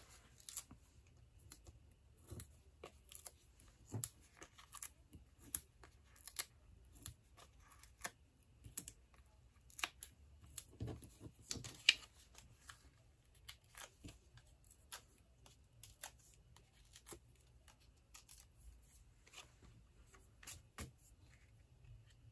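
Faint small clicks, crackles and rustles of handled paper: Stampin' Dimensionals foam adhesive dots peeled from their backing sheet and pressed onto die-cut cardstock circles. The clicks come irregularly, a few a second, with one sharper crackle about halfway through.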